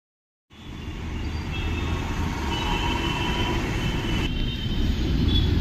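Steady low rumble of a moving vehicle, starting about half a second in, with faint high whining tones over it.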